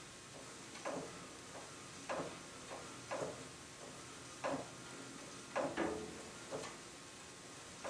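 A large bandsaw's upper wheel being turned by hand to track the blade, with a short knock roughly once a second as it goes round. The knocking comes from the saw rocking on a crack in the shop floor.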